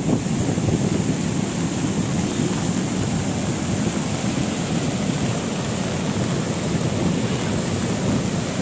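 Swat River in flood, its fast muddy water rushing past below a bridge in a steady, churning rush of noise.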